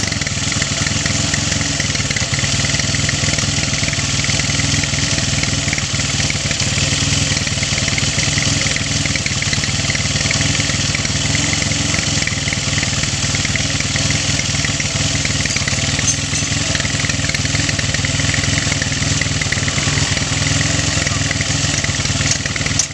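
Odong-odong ride's small engine running steadily at a constant speed.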